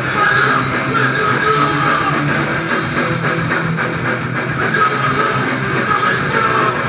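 Live rock band playing loudly: electric guitar and drums in a full-band passage that runs on without a break.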